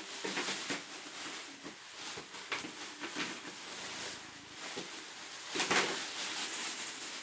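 Thin plastic bags crinkling and rustling as they are pulled open and rummaged through, with irregular crackles and a louder rustle a little over five seconds in.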